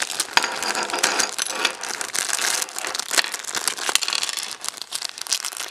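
Thin clear plastic bag crinkling as it is handled and tipped open, with a few light clicks as small plastic miniature pieces drop onto the table.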